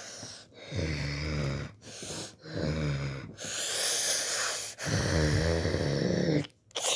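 Three low, rasping growls, the last one the longest, with a breathy hiss between the second and third.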